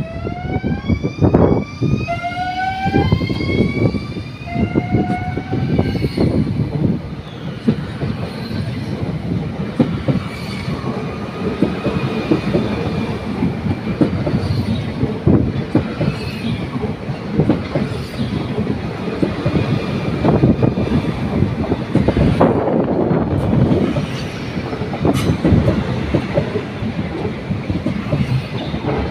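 NS ICNG electric intercity train pulling away and passing close by. Its drive whine, several tones together, rises in pitch over the first six seconds or so as it accelerates. After that come the rolling rumble and repeated wheel clacks of the carriages going by.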